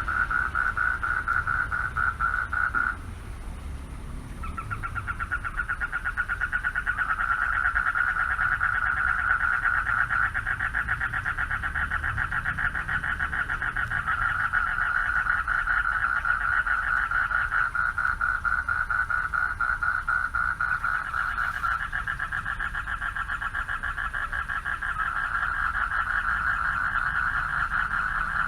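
A chorus of male frogs calling for mates, a continuous rapid pulsing trill that breaks off about three seconds in and starts up again a second or so later.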